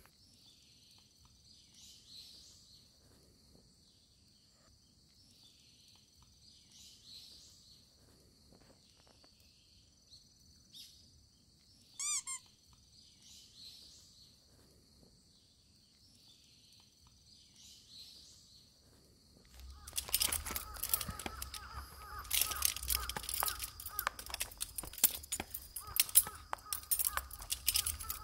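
Outdoor ambience: a faint steady high hiss with soft calls repeating every couple of seconds, and one louder bird call about twelve seconds in. From about twenty seconds a much louder, dense crackling with a steady tone takes over.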